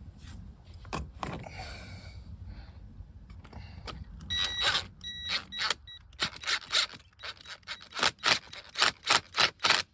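A power drill driving Tapcon masonry screws in short trigger bursts, about two a second near the end, with a brief motor whine in the first bursts. A few scattered knocks come before it.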